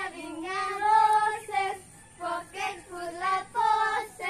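Children singing a rhyme in short sung phrases, with a brief pause about two seconds in.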